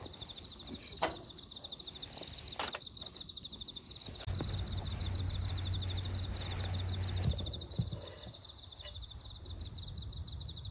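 Steady, high-pitched insect trilling in a continuous chorus. A few sharp clicks come about one and nearly three seconds in, and a low hum runs from about four to seven seconds in.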